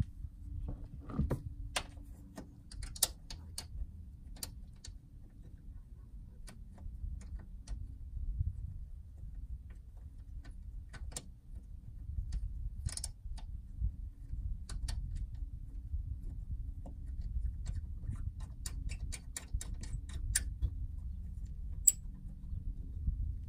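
Hands working on wiring and trim under a pickup truck's seat: scattered small clicks and taps, irregular and several a second at times, over a steady low rumble.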